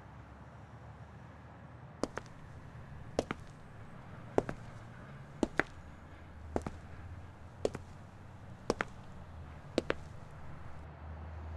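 High-heeled shoes stepping on a hard floor in a slow, even walk of about eight steps, one a little over every second. Each step is a quick double click. The steps start about two seconds in and run over a low steady hum.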